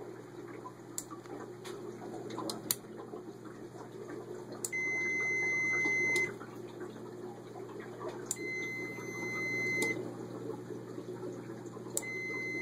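Multimeter continuity beeper sounding three times, each a steady high beep of about one and a half seconds, spaced a few seconds apart. Each beep starts and stops with a relay click as the Arduino-driven relay closes and opens its contacts across the meter's probes. A steady low hum runs underneath.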